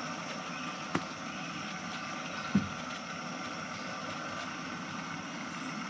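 Single-burner propane camp stove on a green cylinder hissing steadily as it heats a pot of water for coffee, with a light click about a second in and a louder knock at about two and a half seconds.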